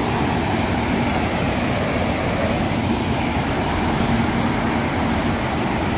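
Flood-swollen canal water rushing fast and churning through white-water rapids as a steady noise; it is muddy runoff from heavy rain in the hills.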